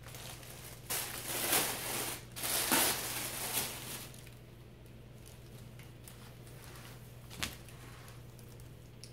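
Rustling and crinkling of the packaging around a bundle of folded clothes as it is unwrapped, in bursts over the first few seconds, then quieter handling with a single click near the end.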